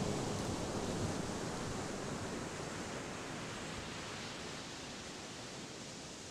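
Steady hiss of sea surf, fading slowly.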